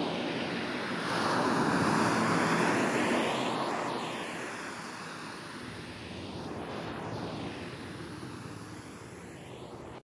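Ocean waves breaking on a beach: a wave swells up about a second in and then slowly washes out. The sound is processed as 8D audio, so it sweeps around the listener with a hollow, phasing whoosh.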